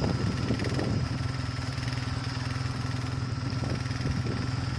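Snowmobile engine running at a steady speed, its pitch unchanging.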